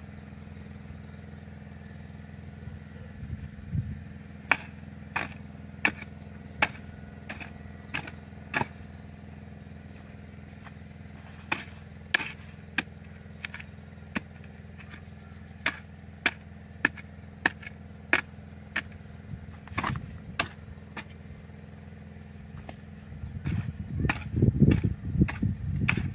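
A garden tool striking into the soil again and again while planting holes are dug, a sharp chop about every second, over a steady engine drone. Near the end come louder, heavier thuds and scraping.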